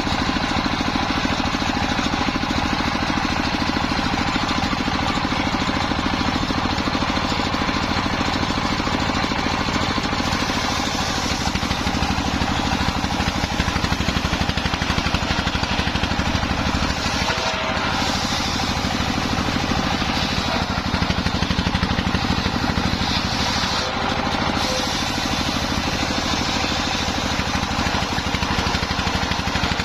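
Engine-driven circular sawmill running steadily with a constant motor drone; the sound grows brighter and hissier about a third of the way in as the blade works through wadang timber, easing off briefly twice later on.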